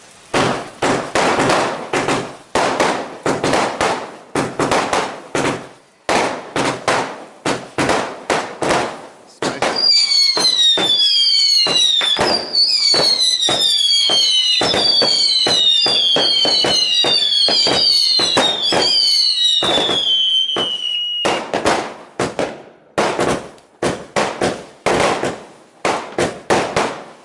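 Fireworks International 'T-Rex' firework cake firing a rapid barrage of shots and bursts, about two reports a second. About ten seconds in, many overlapping whistles falling in pitch join in for around ten seconds, then the run of sharp reports returns.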